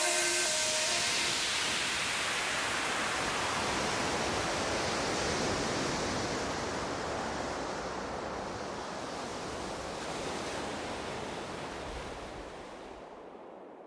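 A steady rushing noise, like hiss or surf with no tones in it, that slowly fades away, dying out near the end.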